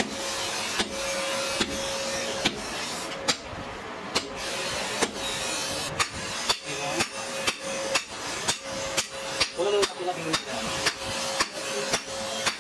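Hand hammer striking red-hot leaf-spring steel on an anvil, forging a knife blade. Sharp strikes come about one a second at first, then faster, around two a second from about halfway.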